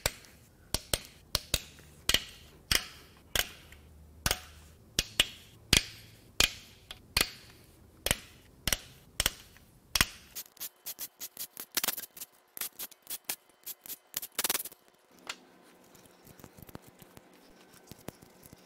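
Hand ratchet wrench clicking as the cam cap bolts on a 3.6L Pentastar V6 cylinder head are worked loose: sharp, evenly spaced clicks about one and a half a second, quickening into a faster run of lighter clicks after about ten seconds, then fainter ones near the end.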